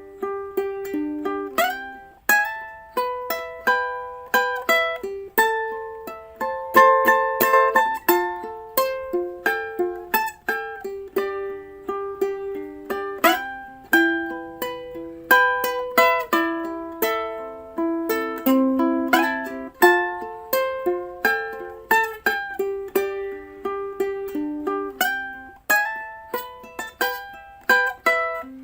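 Background music: an instrumental tune on a plucked string instrument, notes picked one after another and each dying away quickly.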